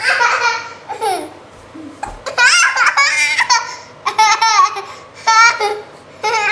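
A young child laughing in about six high-pitched bursts, with short pauses between them.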